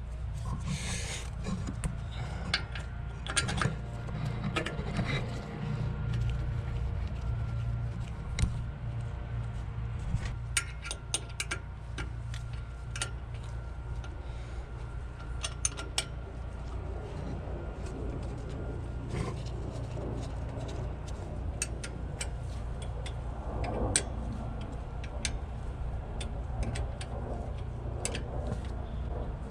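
Scattered sharp metal clicks and clinks of hand tools as the 10 mm brake caliper bolts are threaded back in and tightened, over a steady low background hum.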